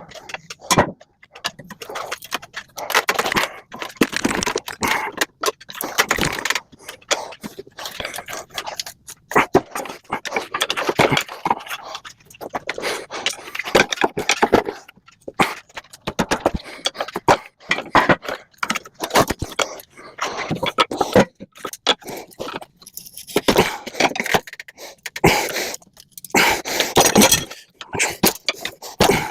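Irregular scraping and clanking of hand tools working on the metal parts of a microwave being stripped for scrap.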